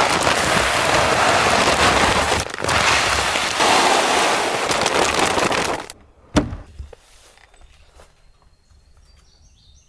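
Deer feed pouring from a bag into a plastic gravity feeder's hopper: a dense, rattling hiss of pellets with a short break partway through. It stops a little after halfway, followed by one sharp click.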